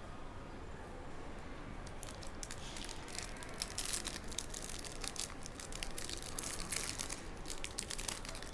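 Foil wrapper of a Prizm Basketball hobby pack crinkling and tearing as the pack is opened, a dense run of crackles from about two seconds in until near the end.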